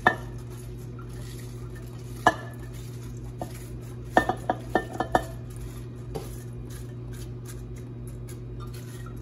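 A utensil clacking against a slow cooker's crock as cabbage is scooped in. There are single clacks at the start and about two seconds in, a quick run of about six clacks around four to five seconds in, and a last one near six seconds, over a steady low hum.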